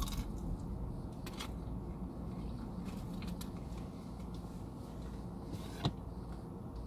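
Faint rustling and a few soft clicks from handling a fast-food box and a drink cup, over a steady low hum inside a car cabin; one sharper click near the end.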